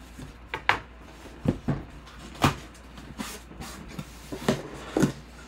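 Cardboard shipping box being opened by hand, its slit-taped flaps pulled back and the inside handled: a string of sharp knocks and scrapes, about eight in all, the loudest about two and a half seconds in.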